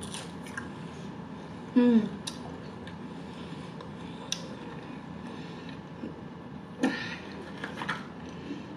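Close-up mouth sounds of someone chewing fried potato dipped in ketchup, with small wet clicks. A short hummed "mm" falls in pitch about two seconds in, and a brief sharper crackle comes near seven seconds.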